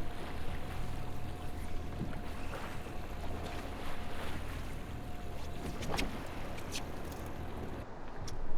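Boat motor running steadily under wind and water noise, with a thin steady whine over it and a single knock about six seconds in; the motor sound drops away near the end.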